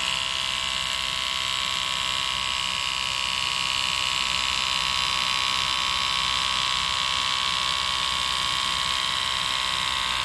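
Split-Ender Pro 2 split-end trimmer running, a steady high-pitched electric motor whine as hair is fed through its cutting head.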